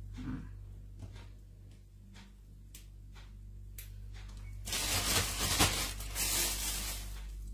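Faint clicks and leaf rustles as bird's-eye chili pods are picked off leafy stems by hand. About five seconds in, a plastic bag crinkles loudly for about two seconds as the chili leaves are handled into it.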